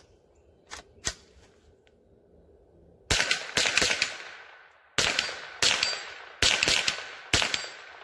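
Rossi RS22 semi-automatic .22 LR rifle firing Winchester M22 40-grain round-nose rounds, starting about three seconds in. It fires a string of single sharp shots roughly half a second to a second apart, each trailing off in a short echo, as the blowback action cycles each round.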